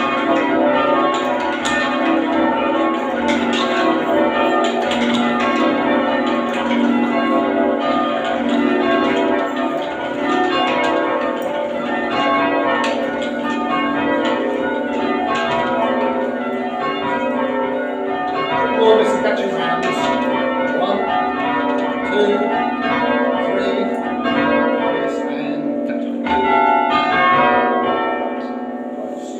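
Full-circle church bells from a ring of eight (13 cwt tenor in F sharp) being rung down in rounds, the strikes following closely on one another and the sound thinning and fading near the end.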